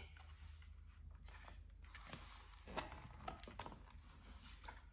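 Faint rustling and a scattering of light clicks and taps as the stiff cardboard pages and paper flap of a board book are handled and a page is turned.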